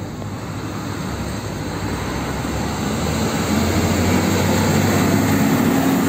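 Container truck driving past, its engine and road noise growing steadily louder as it approaches and comes alongside.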